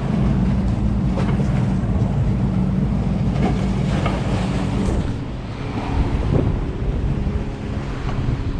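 A motorboat's engine running steadily as the boat passes through the channel, its drone strongest for the first five seconds and easing after. Wind buffets the microphone and waves wash against the jetty rocks.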